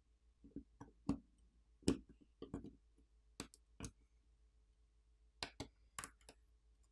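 Small metal repair tools clicking and tapping against the tiny standoff screws and frame of an iPhone 15 Pro while the screws are removed: about a dozen faint, irregular clicks.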